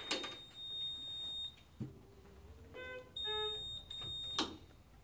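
Puritan Bennett 840 mechanical ventilator beeping as it powers up: a steady high beep for about a second and a half, then a short multi-note electronic chime and another high beep, ending with a sharp click.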